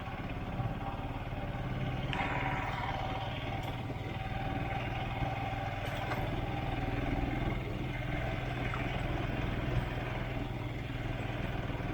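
Royal Enfield Himalayan's 411 cc single-cylinder engine running steadily, with wind noise on the helmet-camera microphone.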